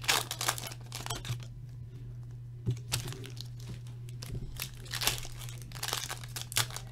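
Foil hockey-card pack wrappers being torn open and crinkled in irregular bursts, loudest right at the start and again about 3 and 5 seconds in, over a steady low electrical hum.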